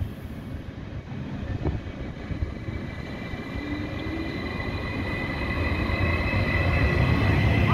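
Stadler FLIRT Sm5 electric commuter train approaching along the platform track, its rumble growing steadily louder, with a steady high whine over it.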